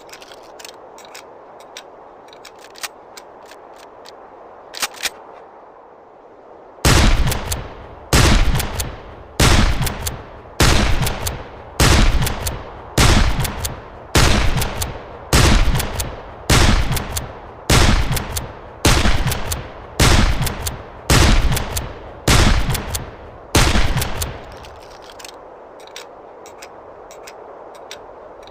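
1860 Henry lever-action rifle firing a long string of about sixteen shots, roughly one a second, each crack followed by a short ringing tail. A few faint clicks come before the first shot.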